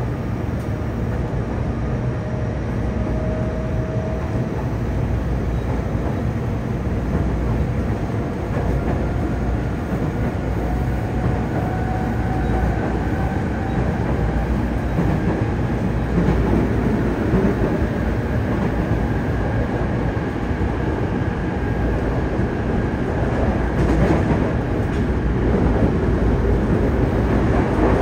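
Running noise inside a Yokohama Blue Line 3000N-type subway car with Mitsubishi IGBT-VVVF drive: a steady low rumble of wheels and motors. Faint whining tones rise slowly in pitch as the train gathers speed, and a few short knocks come near the end.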